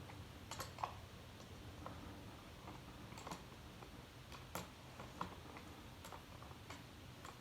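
Faint, irregular small metal clicks and ticks of 10 mm wrenches working the battery-cable bolt and nut, about a dozen spread unevenly. The bolt is stripped and won't tighten.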